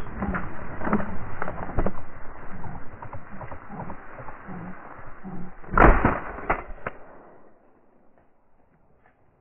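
A single shotgun shot about six seconds in. Before it come irregular rustling and knocks, and after it the sound drops to a faint hiss.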